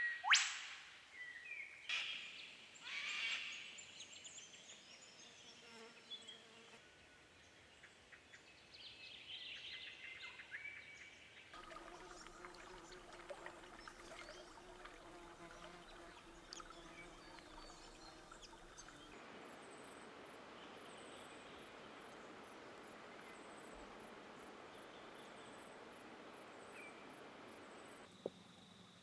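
Wild bird calls, sharp and loudest in the first four seconds with one quick call sweeping down in pitch, then fainter bush background with scattered calls. In the last third a faint high ticking repeats about twice a second.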